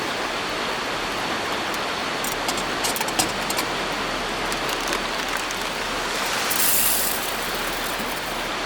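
Steady rush of a swollen river, with a run of small metal clicks from a Feuerhand hurricane oil lantern being worked about two to three and a half seconds in. A short scratchy hiss comes near the end.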